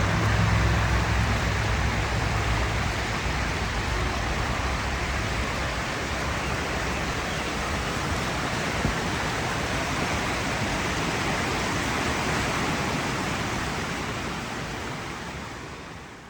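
Steady rushing water of a waterfall, a continuous even roar that fades out near the end.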